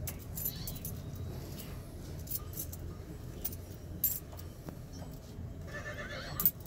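Steady low room hum with scattered light clinks and clicks.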